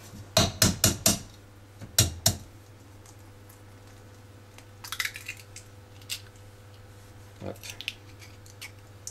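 Kitchen handling of eggs and bowls: a run of sharp taps, four quick ones about half a second in and two more around two seconds, then softer scraping and small clicks of eggshell as an egg is separated over a plastic bowl.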